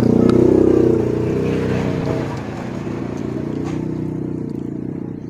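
Engine of a passing motor vehicle, loud at first, then fading over the next second or so and running on faintly.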